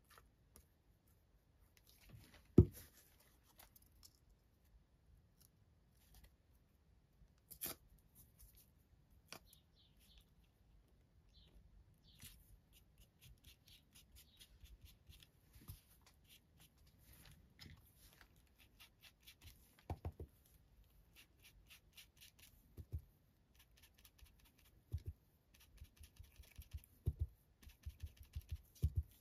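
Hands-on paper crafting: paper and small tools being handled, with one sharp knock about two and a half seconds in, then a long run of quick, light taps and snips against paper.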